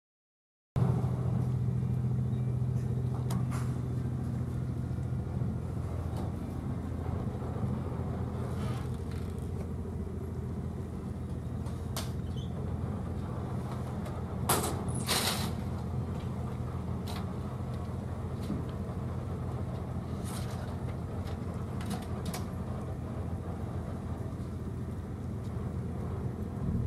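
Boat's diesel engine idling at its mooring: a steady low hum with a few fixed pitches, starting about a second in. Two or three short sharp knocks sound briefly around the middle.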